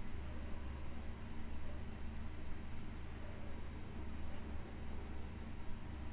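A cricket chirping in a steady, rapidly pulsing high-pitched trill, with a low steady hum underneath.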